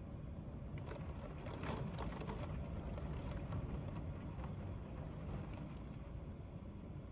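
Wind buffeting the microphone: a steady low rumble, with brief scratchy bursts in the first few seconds.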